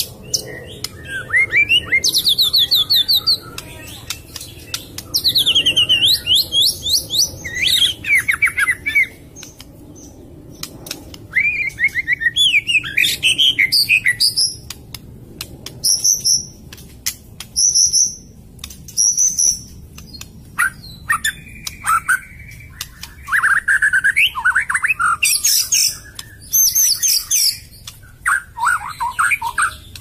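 Oriental magpie-robin (kacer) singing a string of varied phrases: fast repeated trills, clear whistled notes and a rasping call, separated by short pauses.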